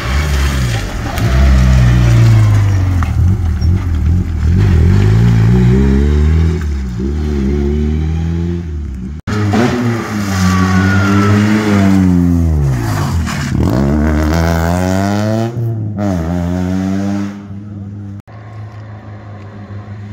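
Rally car engines driven hard on a stage, revving high and dropping back at each gear change: first a Peugeot 106 approaching, then after a cut a second car revving through its gears and passing close by with a falling pitch. A cut near the end leaves a quieter, more distant car engine.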